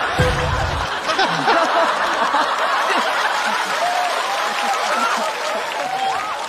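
Large studio audience laughing, many voices at once, with individual laughs standing out from the crowd; it fades a little near the end.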